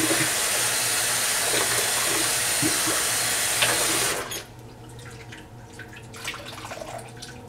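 Tap water running steadily from a faucet as shampoo is rinsed out of a hair bundle, shut off suddenly about four seconds in, leaving only faint drips.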